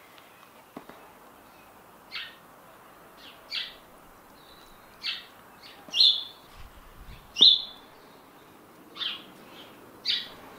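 A small bird chirping: short, repeated chirps, several sliding downward, coming about every second, the two loudest near the middle. A few faint clicks from handling are heard beneath.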